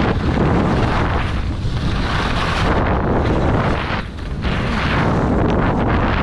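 Wind buffeting the microphone of a camera carried by a downhill skier, a loud steady rush with a short dip about four seconds in. The skis hiss and scrape over packed, tracked-up snow underneath it.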